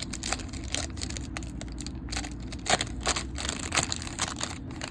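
Foil wrapper of a baseball card pack being torn open and crinkled, with irregular sharp crackles, the loudest a little under three seconds in and again near four seconds.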